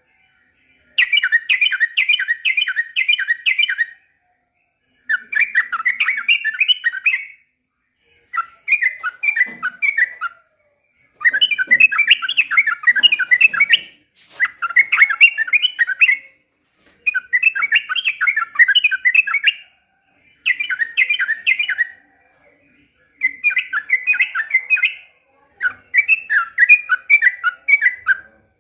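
Yellow-vented bulbul (trucukan) singing in full song: repeated bouts of rapid, bubbling chattering notes, each two to three seconds long with short pauses between.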